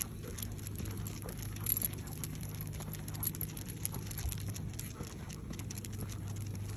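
Footsteps of a walker and a basset hound on a concrete sidewalk: a steady run of light irregular clicks and scuffs, including the dog's claws tapping the pavement, over a steady low hum.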